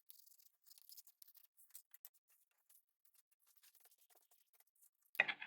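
Faint, irregular scratching and scraping as old foam-surround glue residue is cleaned off a subwoofer driver with alcohol, with one louder knock near the end.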